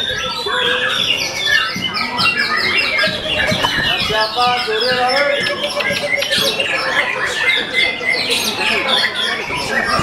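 Caged white-rumped shamas (murai batu) singing loudly together, a dense tangle of overlapping whistles, trills and rapid chattering phrases.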